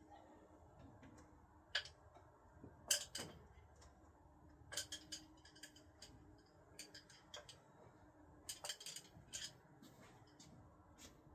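Throwing screwdrivers clinking against each other as they are handled: a scattered series of faint, sharp metallic clicks and light clinks, some in quick pairs.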